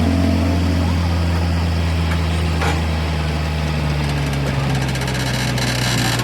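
An engine idling steadily with a low hum, its pitch sagging slightly about four seconds in.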